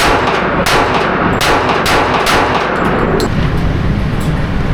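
Gunshots at a shooting range: five sharp reports in quick succession over about two and a half seconds, then two fainter shots, over a steady low rumble.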